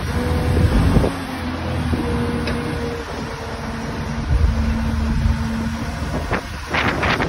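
Farm loader tractor's engine running steadily, with a faint steady whine over its rumble. A quick run of sharp metal clattering knocks near the end.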